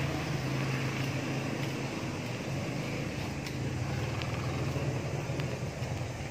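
A steady low motor hum with a constant background noise, and a few faint clicks midway.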